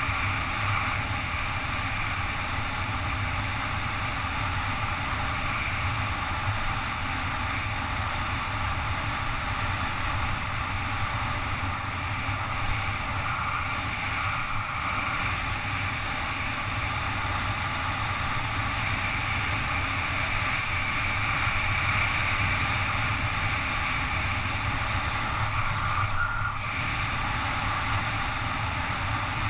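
Steady rushing wind noise on a helmet-mounted GoPro's microphone during a fast downhill bicycle descent on asphalt.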